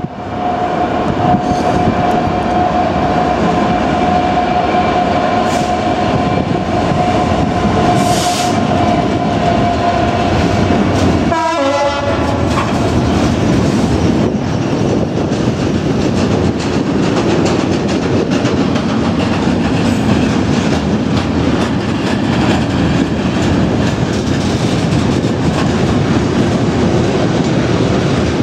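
Freightliner Class 66 diesel locomotive approaching and passing at the head of a long container freight train. A steady high tone runs for the first ten seconds or so, there is a brief wavering sound about twelve seconds in as the locomotive goes by, and then the container wagons rumble and clickety-clack past on the rails.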